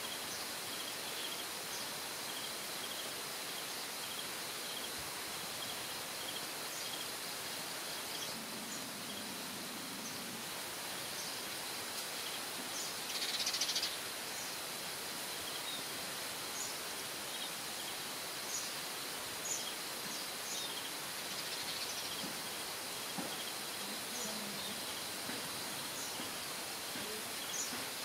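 Steady outdoor hiss with short, high bird chirps scattered throughout, and one louder, brief high call about halfway through.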